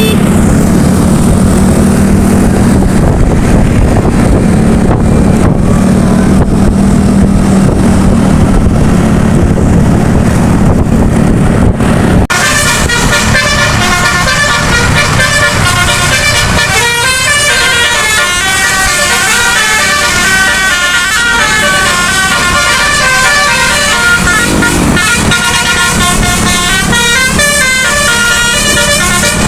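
A bus engine runs with a loud steady low drone. About twelve seconds in, it switches abruptly to a telolet musical air horn with nine trumpets playing a quick tune of stepping notes that continues to the end.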